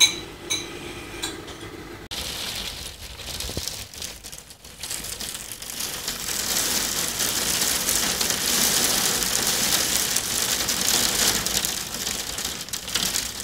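Steady hiss of rain, coming in about two seconds in and growing louder a few seconds later, after a few light clicks at the start.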